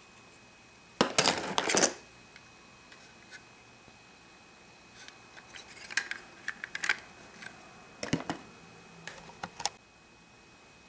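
Small hard plastic toy pieces clicking and clattering as a folding plastic playset is handled: a dense clatter about a second in, then scattered sharp clicks.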